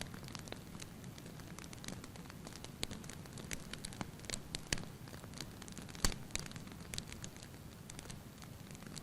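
Faint crackling: irregular sharp clicks and pops, a few a second, over a low steady hum.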